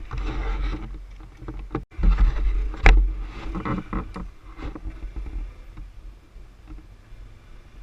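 Low rumble and jolting of an ATV ride over rough ground, with the loudest crack-like jolt about three seconds in and a few further knocks, quietening after about five seconds.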